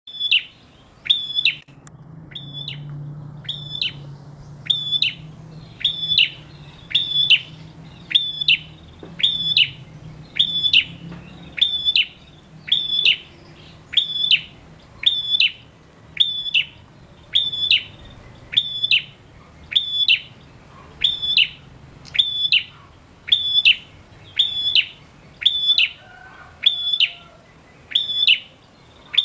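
Caged male prenjak calling a short, sharp, high note over and over, about once every second and a bit, in an unbroken, evenly paced series: the nonstop 'gacor' calling of a male in full voice.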